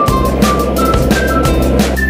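Background music: a melody over a steady drum beat, with a deep bass line coming in right at the start.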